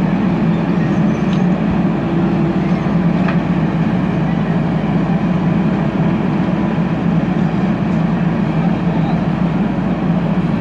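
JCB 3DX backhoe loader's diesel engine running steadily, a continuous low drone with no marked changes in speed.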